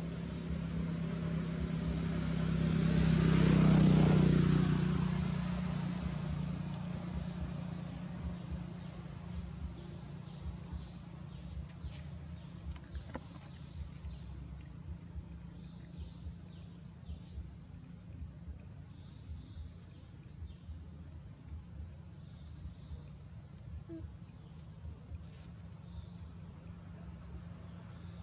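A motor vehicle passes, its engine hum swelling to a peak about four seconds in and then fading away. Under it, insects keep up a steady high drone, and a higher insect note stops about ten seconds in.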